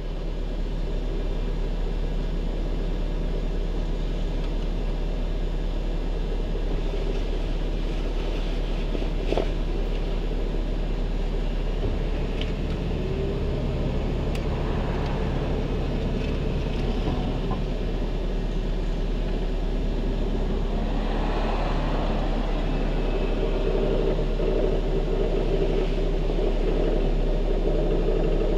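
Suzuki Swift engine idling with the bonnet open, making a repetitive rattling ("katakata") mixed with a metallic scraping. It is an abnormal noise that comes on suddenly a few minutes after a cold start, as the engine begins to warm up.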